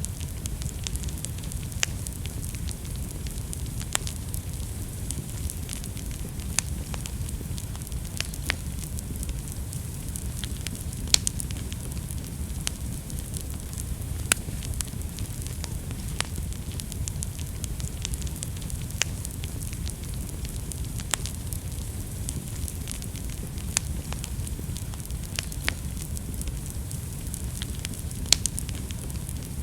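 Wood fire burning in a fireplace: a steady low rumble and hiss of flames with irregular sharp crackles and pops from the burning logs.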